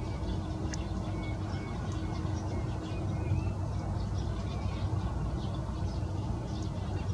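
Steady low outdoor rumble with a faint level hum, and short high-pitched bird calls scattered throughout.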